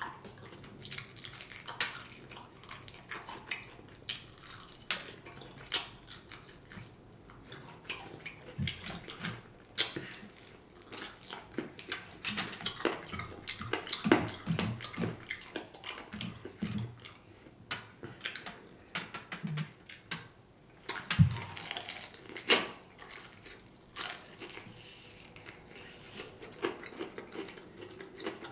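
Close-miked eating of fried chicken wings: wet chewing and lip-smacking with many sharp, irregular clicks.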